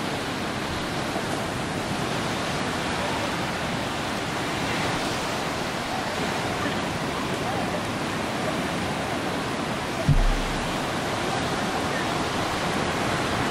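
Ocean surf breaking and washing up the beach, a steady rushing of waves, with a brief low thump about ten seconds in.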